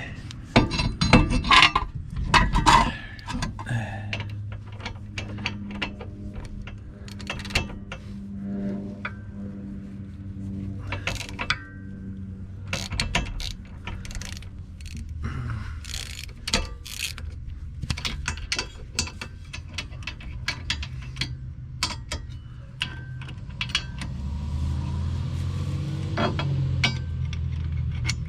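Ratchet wrench clicking in irregular runs while turning a bolt, with metal tool clinks, over a low steady hum.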